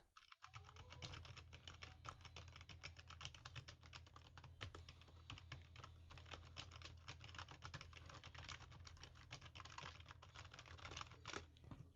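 Faint, quick typing on a membrane computer keyboard: soft, irregular key presses, several a second.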